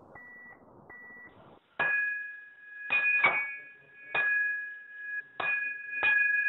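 Two short high beeps, then a bell-like chime struck about six times at uneven intervals. Each strike rings on as a steady two-note tone, in the manner of a glockenspiel or tuning-fork music cue.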